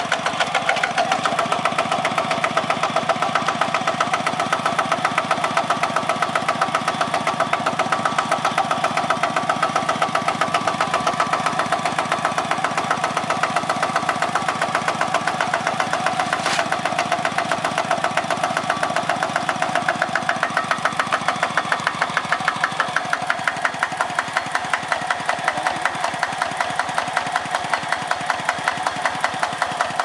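Single-cylinder diesel engine of a two-wheel walking tractor running steadily, with an even, rapid chugging beat.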